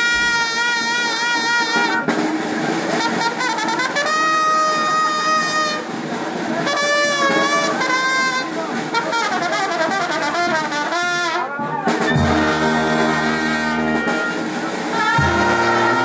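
Mexican village brass band playing: trumpets carry the melody in held notes with a wide vibrato, and sousaphones come in with low bass notes about twelve seconds in.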